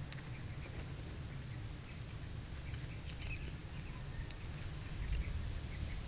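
Faint scattered ticks and rustles from scorpions on bamboo skewers being handled over a charcoal fire, over a steady low outdoor rumble.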